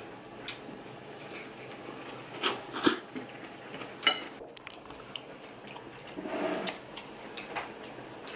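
Wooden chopsticks clicking and tapping against ceramic bowls and a plate as food is picked up: scattered sharp clicks, the loudest two close together a little before three seconds in. A short muffled eating sound follows a little after six seconds in.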